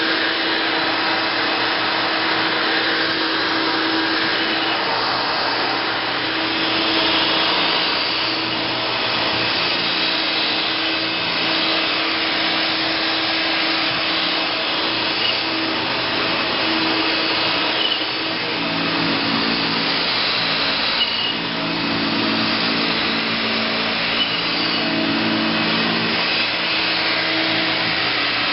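1971 Hoover Dial-a-Matic model 1136 vacuum cleaner running steadily. About two-thirds of the way in its low hum changes and begins to waver, with a few light clicks.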